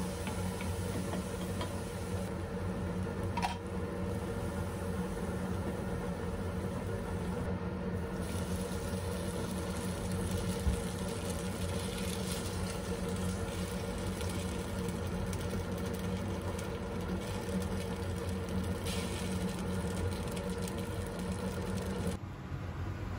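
Food frying in a nonstick pan as chili oil, spices and then udon noodles are stirred with a wooden spatula, over a steady machine hum; a single click about three and a half seconds in.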